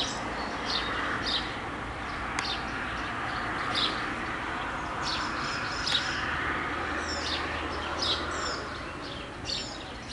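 Birds chirping: short high notes repeating every second or so over a steady background hiss.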